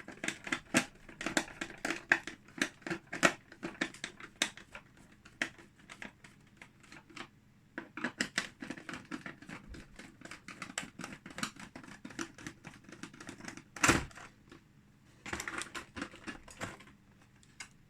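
Hand screwdriver taking out the screws that hold a die-cast model car to the plastic base of its box: irregular clicks and scrapes of metal on plastic, with one louder knock about 14 seconds in.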